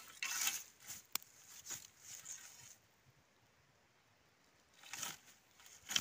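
Dry grass and straw rustling in short bursts as a wooden tool handle is poked into the straw around an animal's burrow hole. The bursts stop for about two seconds, then come twice more near the end.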